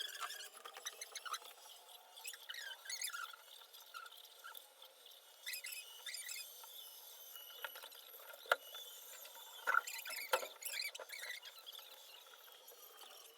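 Welding arc crackling and sputtering irregularly, with a few louder sharp pops in the second half.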